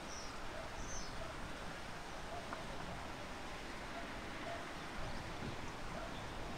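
Outdoor ambience: a steady, even hiss of wind and open air, with a few faint bird chirps in the first second.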